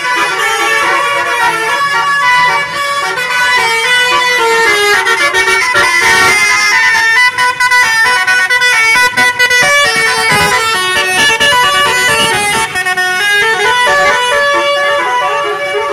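Bus telolet horn, a Basuri-type multi-tone musical horn, playing a loud tune of quickly changing notes with several tones sounding together.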